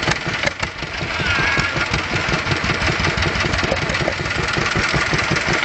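Small green stationary engine running, its exhaust beating in quick, regular strokes.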